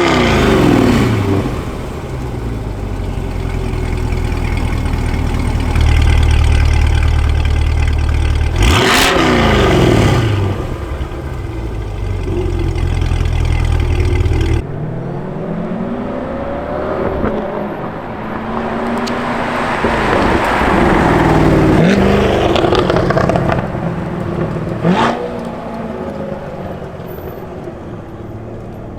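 Exhaust of a C8 Corvette's 6.2-litre V8 under acceleration, with the engine note sweeping up and falling away as the car passes, about a second in and again around nine seconds. After an abrupt cut about halfway, more rising and falling engine notes follow, ending in a sharp rev near the end.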